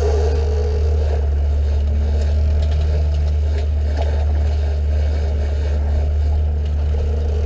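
Outboard motor running steadily with the boat under way, a constant low drone mixed with the rush of water along the hull.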